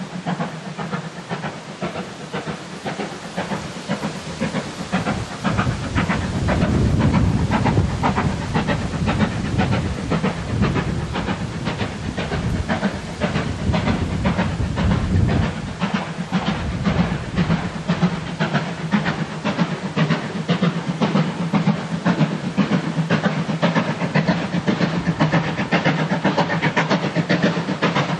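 Steam locomotive hauling a train of coaches under steam, its chimney exhaust beating in a steady rhythm over a hiss of steam. The sound swells, fuller and deeper, a few seconds in, then eases back past the middle.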